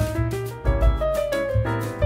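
Background music: a piano melody over a bass line with a beat.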